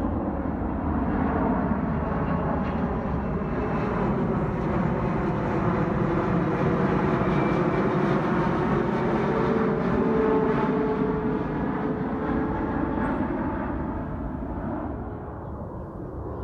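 Twin-engine Boeing 777 jet on approach with its landing gear down, passing low overhead: a steady jet rumble that swells to its loudest about ten seconds in and then fades away.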